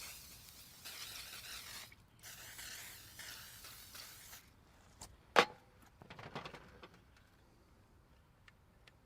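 Aerosol cooking spray hissing in two bursts of about two seconds each, then one sharp clank a little after five seconds in, the loudest sound, followed by a brief rattle.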